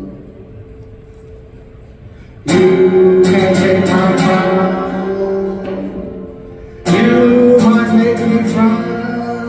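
Guitar chords strummed in two loud bursts, the first about two and a half seconds in and the second near seven seconds, each left ringing and slowly fading.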